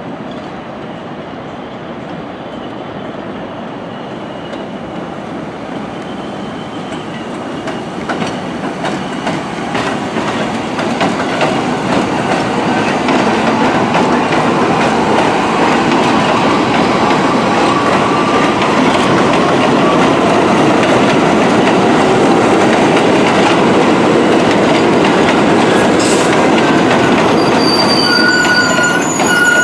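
An R62A subway train of the 1 line running into an elevated station: steel wheels rumbling on the elevated structure, growing steadily louder as it approaches and draws alongside the platform, with rail clatter throughout. Near the end, high thin wheel squeal sets in as the train slows.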